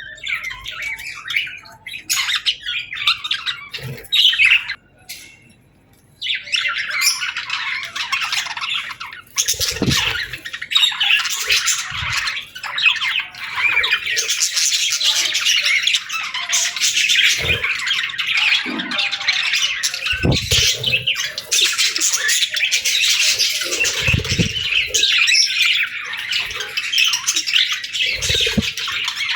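Pet budgerigars chattering and squawking together: a dense stream of chirps that pauses briefly about five seconds in, then runs on without a break, with a few soft thumps under it.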